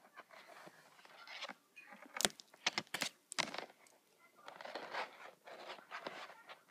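Plastic lanyard lacing being handled and pulled through the fingers close to the microphone: rustling and scraping, with a quick run of sharp clicks and knocks about two to three and a half seconds in.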